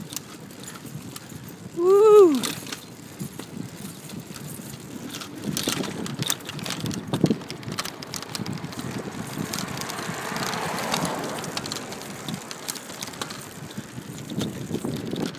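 20-inch BMX bicycle being ridden along a street: a steady rush of tyre and wind noise with scattered clicks and rattles. A short shouted call rises and falls about two seconds in.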